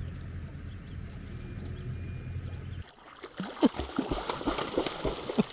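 A boat's motor running with a steady low hum, which cuts off abruptly about three seconds in; then a quick run of short pitched sounds that bend up and down, several a second.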